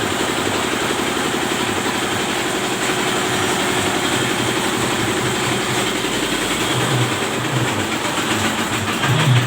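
Meatball grinding machine with a 65 cm bowl running steadily: a continuous motor drone with a fast, even clatter.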